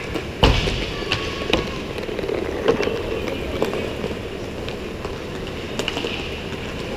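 Roller hockey play in an indoor rink: scattered sharp clacks of sticks and puck echoing off the walls over steady background noise of the rink. The loudest is a heavy knock about half a second in.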